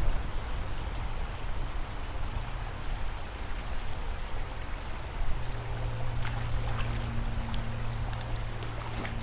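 Steady rush of flowing river water, the river running high after heavy rain. A low steady hum joins about halfway through, and a few faint ticks come near the end.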